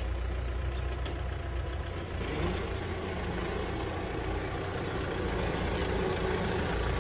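Kubota M6040SU tractor's diesel engine running steadily under load while pulling a disc plough through dry soil, its note rising a little about two and a half seconds in.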